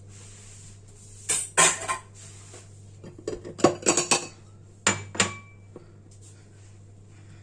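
Kitchenware clattering in three short clusters of clinks and knocks, about one, three and five seconds in; one clink near the end rings briefly.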